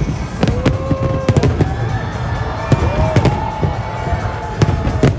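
Large fireworks display going off: a rapid run of sharp bangs over a continuous low rumble and crackle of shells bursting.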